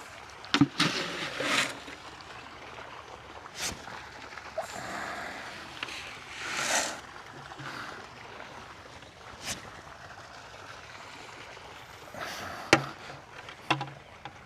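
Chicken scratch grain being scooped and scattered: several brief rustling, trickling pours of dry grain, with a few sharp clicks in between.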